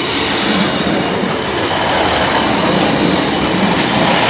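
Diesel multiple unit passing close by on the track, its engine and wheels on the rails growing louder for the first couple of seconds and then holding steady as the carriages go past.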